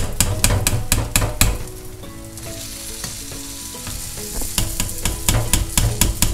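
A metal skimmer clinking and scraping against a steel pot as boiled gnocchi are scooped out of the cooking water and tipped into a frying pan of escarole. The clicks come in two clusters, a quick run at the start and another near the end, with a quieter stretch between.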